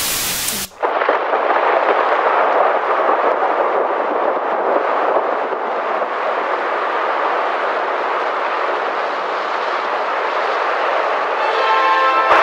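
Television static hiss that cuts off abruptly within the first second, followed by the steady rush of heavy rain. Near the end, ringing bell-like tones begin over the rain.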